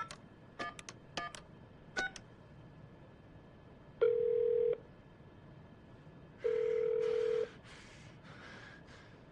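Office desk telephone: a quick run of keypad beeps as a number is dialled, then the ringback tone, a steady low tone sounding twice for about a second each with a pause between, meaning the call is ringing through at the other end.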